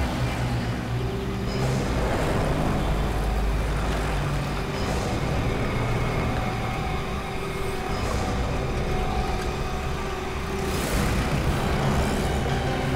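Busy road traffic: vehicle engines running and passing, with a steady low rumble.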